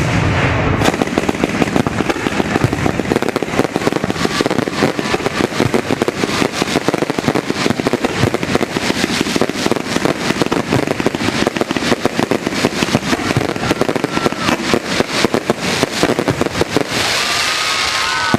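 Fireworks crackling and popping in rapid, dense succession. Near the end the pops give way to a steady hiss.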